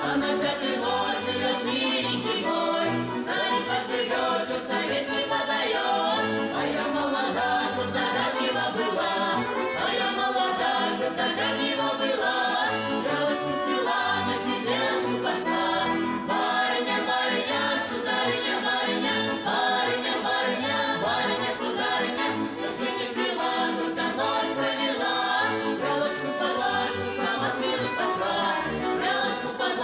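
Folk vocal ensemble singing a Russian folk song together, with accordion accompaniment.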